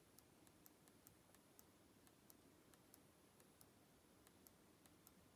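Near silence with faint, light clicks at irregular spacing, a few a second, from the small buttons of a Sony NW-1000 Walkman being pressed to step through its menu.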